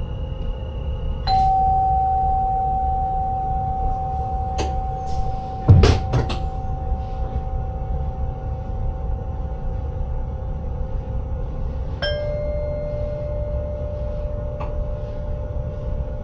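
Chime tone sounding in a train driver's cab about a second in and fading slowly, a second, lower chime near the end, and a loud single knock between them, over the steady running rumble and hum of the train.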